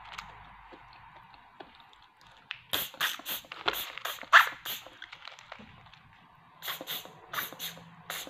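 Sharp, airy sucking slurps of small snails being sucked out of their shells by mouth: a quick run of slurps about three seconds in, and another run near the end.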